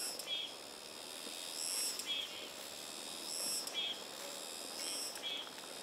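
Repeated high-pitched animal calls, each a swelling high note followed by a short buzzy trill, coming about every one and a half to two seconds.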